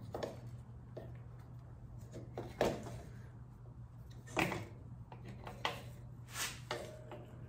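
A few short clunks and knocks as a motorcycle carburetor is worked against the surrounding frame and parts while it resists coming out, over a steady low hum.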